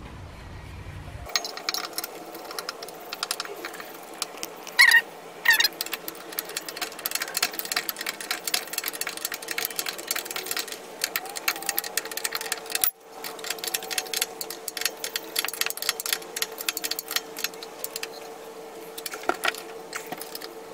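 Ratchet wrench clicking rapidly as the brake caliper bracket bolts are run in, over a steady hum, with a couple of louder metal clanks about five seconds in.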